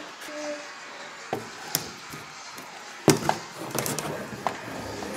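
A few light knocks and taps on cardboard, with a louder knock about three seconds in: a toy doll bumped against the wall of a cardboard playhouse.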